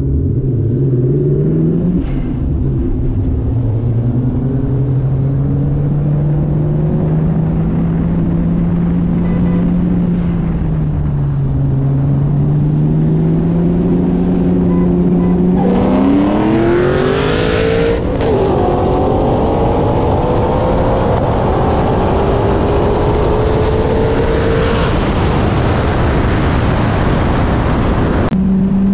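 Two drag-race cars, a single-turbo 2JZ Toyota Supra and a supercharged Mustang Cobra, running at low revs with the pitch drifting up and down while staging, then about sixteen seconds in a hard launch at full throttle: engine revs rise sharply, drop at a gear change a couple of seconds later, and climb again as the cars pull away down the road.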